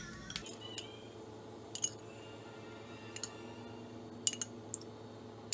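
Several light clinks of a steel spoon against a nonstick kadai as cooking oil is spooned into it, over a steady low hum.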